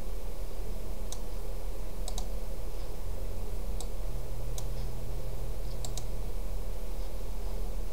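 Computer mouse clicking about eight times at irregular intervals, short sharp clicks, over a steady low hum.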